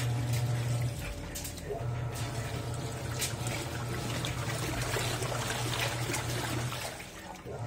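Panasonic NA-F160B5 top-load washing machine agitating a full load of T-shirts: water sloshing and swishing over a steady low motor hum that drops out briefly about a second in and again near the end.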